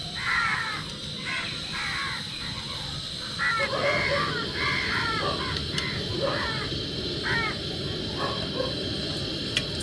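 Crows cawing repeatedly, a dozen or so short calls in quick irregular runs, over a steady low background rumble.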